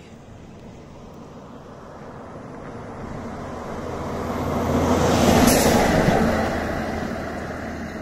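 A road vehicle passing by on the highway: tyre and engine noise builds up, peaks just past the middle, and fades away again.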